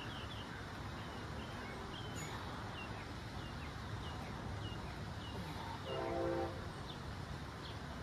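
Steady outdoor background rumble with a small bird chirping about twice a second, and one short, steady horn blast about six seconds in.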